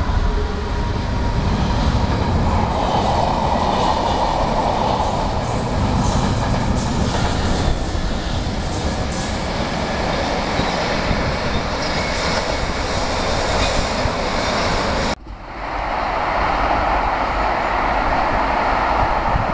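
GB Railfreight Class 66 diesel locomotive and its freight train passing close, with a steady rumble and the wagons clattering over the rail joints. About fifteen seconds in the sound breaks off suddenly and gives way to a steady wind noise on the microphone.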